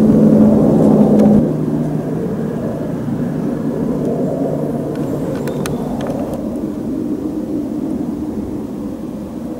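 Model steam plant, a small twin-cylinder steam engine with its vertical boiler, giving a steady rushing noise. A low hum in it stops about a second and a half in, and a few faint clicks come near the middle.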